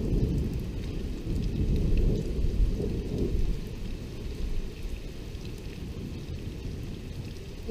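Thunder rumbling over steady rain; the low rumble swells over the first three seconds or so, then eases back into the rain.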